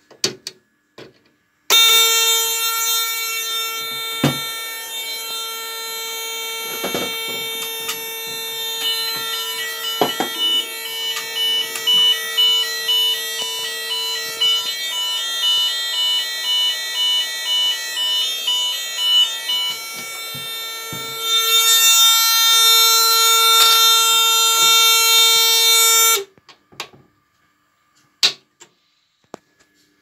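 Chubb Zonemaster 204 fire alarm panel sounding after its test switch is pressed: a steady electronic alarm tone, joined for several seconds in the middle by a second tone pulsing on and off. The alarm grows louder near the end, then cuts off suddenly, with a few switch or relay clicks before and after.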